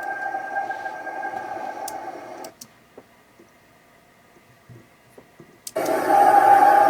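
An unexplained droning hum from a woods field recording, played back after being boosted in an audio editor, with a steady pitch and a hiss around it. It drops out about two and a half seconds in, leaving a few faint clicks, then comes back suddenly and louder near the end.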